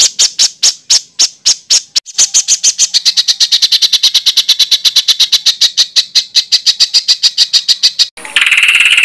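A songbird calling a rapid series of sharp, repeated notes, about five a second at first, then speeding up to a fast rattling string from about two seconds in. It ends with a short harsh, buzzy rattle near the end.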